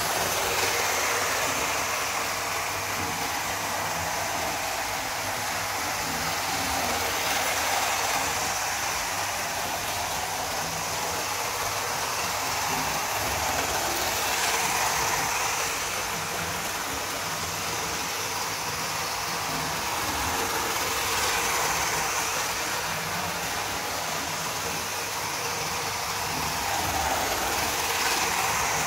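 Hornby InterCity 125 model train running on its track: a steady whirr of the electric motor and wheels on the rails, growing louder about every seven seconds as the train passes close.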